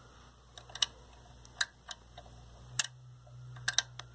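Steady low mains hum from a 1932 Aztec cathedral vacuum-tube radio's speaker, the radio powered up on the bench, with about seven sharp irregular clicks over it.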